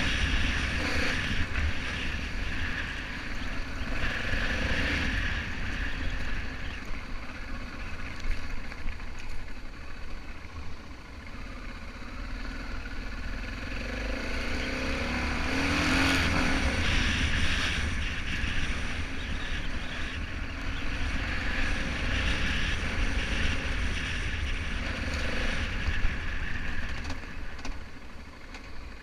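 BMW F650GS motorcycle engine running under way, its note rising and falling with the throttle, over a steady low wind rumble on the microphone.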